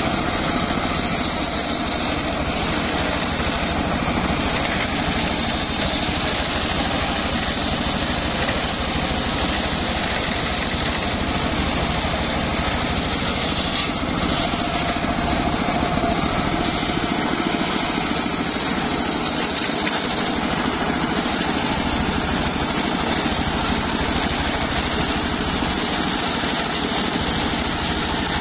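Large sawmill bench circular saw running steadily while it rips a mahogany plank fed along its table. The noise stays even throughout, with no break.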